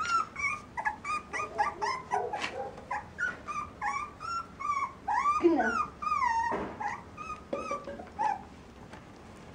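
Puppies whimpering and yelping, a quick run of short, high, whiny cries that stop about a second before the end.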